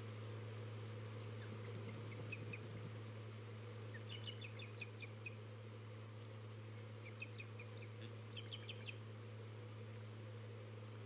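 Ospreys at the nest calling: several quick runs of short, high chirps, over a steady low hum.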